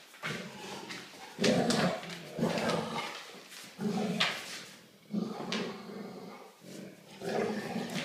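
Dogs growling in repeated rough bursts, about one a second, as they tug on a rope toy in play.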